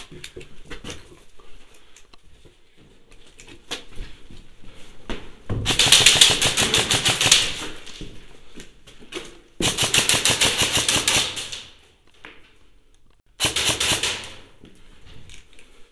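Electric airsoft rifle (Ares Amoeba 009 AEG with a high-torque motor and 18:1 gears) firing on full auto: three bursts of fast, even clicking, two of about two seconds each and a shorter one near the end, with light knocks and shuffling between them.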